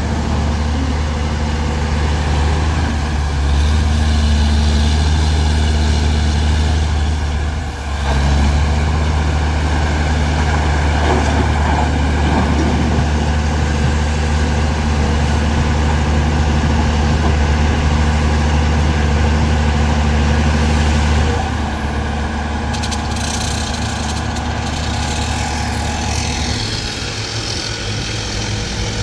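Large diesel engine of heavy earthmoving machinery running steadily under load. It dips briefly about a third of the way in and drops in level and changes note in the last third.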